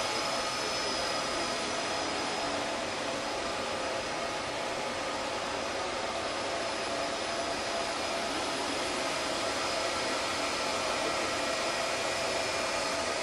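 Steady rush of cooling fans from rack-mounted network switches and servers, with several faint steady whining tones over the noise.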